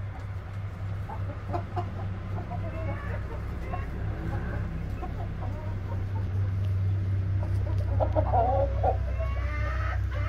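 Flock of light Brahma chickens clucking and giving short calls here and there, with a brief run of calls about eight seconds in, over a steady low hum.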